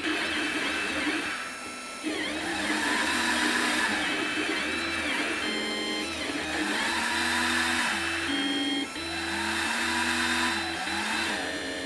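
Stepper motors of an Ender 3 converted into a diode laser engraver, whining in tones that glide up and down as the head traces the curves of engraved letters. Steady tones cut in and out between the glides, over a steady hiss.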